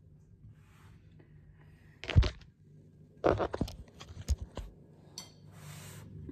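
Kitchen handling of a dish holding a microwaved cabbage head: one loud thunk about two seconds in, then a quick run of knocks and clinks, and a short rustle near the end.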